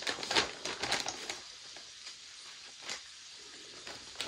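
Clear plastic zip-top bag crinkling and crackling as it is handled and pulled open by hand, busiest in the first second and a half, then a short crackle about three seconds in and more near the end.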